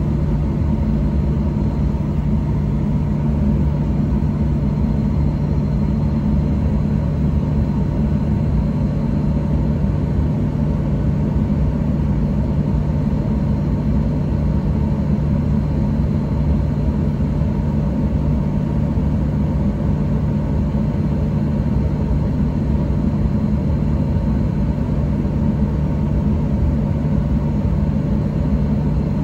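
Boeing 737-800 cabin noise during taxi: the CFM56-7B engines at idle thrust making a steady low rumble and hum, with a faint high whine above it.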